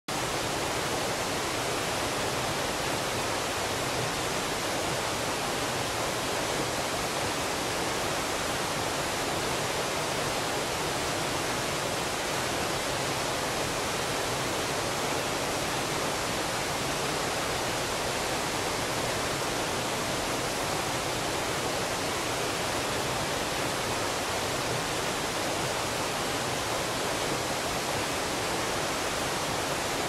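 A mountain stream pouring down a rocky cascade as white water, a steady, unbroken rush of water.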